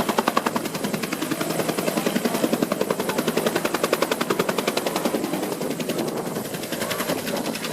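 Helicopter rotor blades beating in a fast, even pulse, the beat growing less distinct near the end.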